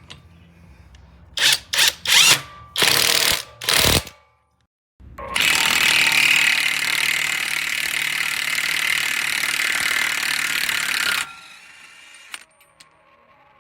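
Cordless brushless impact wrench (SEESII S7) triggered in several short bursts, then after a break running steadily for about six seconds with its hammering rattle before stopping.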